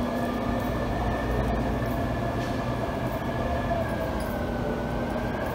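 Air-conditioning equipment running: a steady low hum with a thin whine that wavers slightly in pitch.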